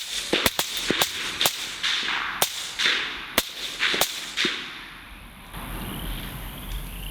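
Rapid, irregular gunfire from several guns at once, about ten shots in the first four and a half seconds, each with a short echo, as hunters fire on a group of hogs. Afterwards, insects chirp steadily.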